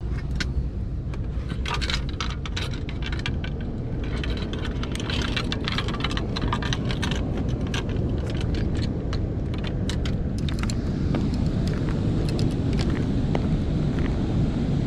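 Steady low rumble of rushing spillway water and wind on the microphone. For roughly the first ten seconds it is peppered with many sharp clicks and rattles.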